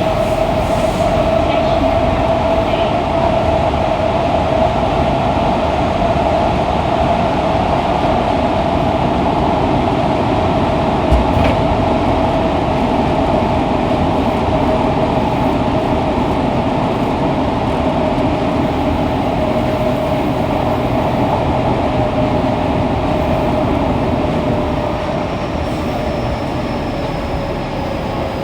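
Running sound of a Fukuoka City Subway 2000-series car with Hitachi late-type GTO-VVVF traction equipment, heard from the car floor while it runs through the tunnel. A steady motor tone sits over the wheel and tunnel noise. About 25 seconds in, the sound drops a little, the tone sags slightly and a faint high whine comes in.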